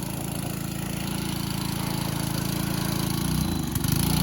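Small gas engine of a pressure washer running steadily; about three seconds in its note changes and it gets louder.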